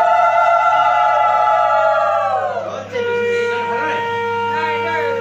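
Conch shell (shankh) blown in one long, loud note that drops away about two and a half seconds in. A second, lower conch note starts about three seconds in and holds steady, with voices over it, sounded for the ritual bathing of the deities.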